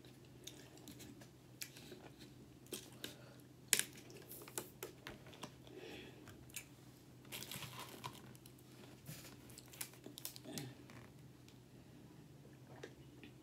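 Faint crinkling and scattered clicks of a thin plastic water bottle being handled, its cap twisted open around the middle.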